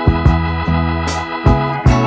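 Background music: sustained organ-like keyboard chords over a beat of sharp drum hits about twice a second.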